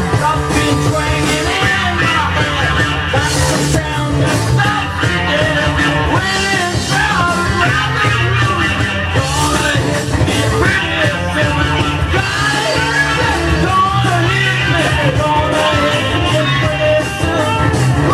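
Loud blues-psychedelic rock recording from a 1970 vinyl LP: a rock band playing with a male lead vocal sung and yelled over it.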